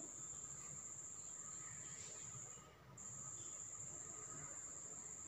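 Faint, steady high-pitched insect trill that breaks off briefly about two and a half seconds in.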